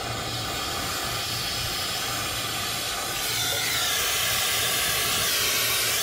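Oxy-acetylene brazing torch burning with a steady hiss, which turns brighter and sharper about halfway through.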